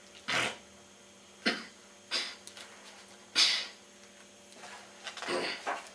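A person sneezing and coughing in a string of short, sharp bursts, about five in all, with the loudest about three and a half seconds in and a ragged run of them near the end.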